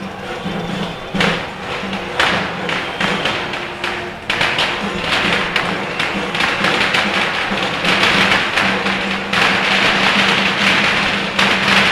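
Festival procession music: drums struck in quick, dense rhythm over a steady low drone, with a bright hiss building from a few seconds in and the whole getting louder toward the end.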